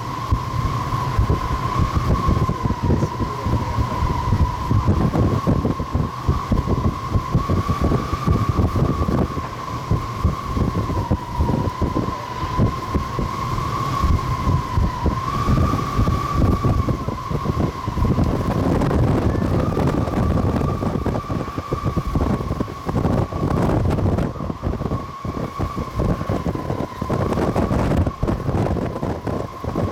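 Jet airliner engines whining steadily on the landing approach, a single high tone that wavers slightly in pitch, under heavy gusts of wind buffeting the microphone.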